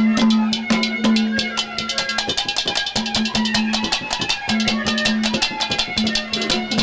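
Instrumental interlude of ragni folk music: fast, dense drumming with a held low note that breaks off and comes back every second or so.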